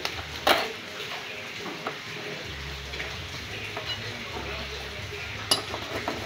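Scattered clicks and knocks of hand tools and metal parts being handled at a car's body mount, the two sharpest about half a second in and near the end, over a steady low hum.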